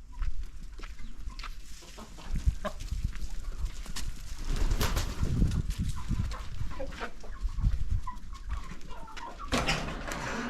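Flock of laying hens clucking, with scattered short clicks and knocks over a steady low rumble.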